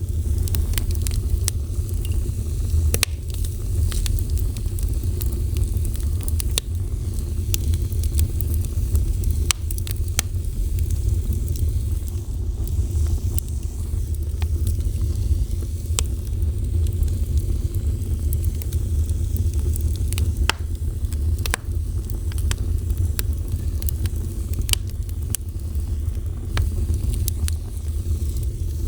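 Fire burning: a steady low rumble with frequent irregular crackles and pops.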